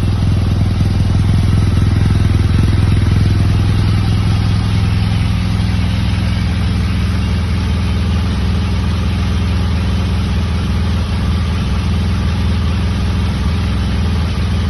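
BMW R 1200 GS Adventure's flat-twin boxer engine idling through its stock exhaust with a steady low hum, a little louder for the first few seconds before settling.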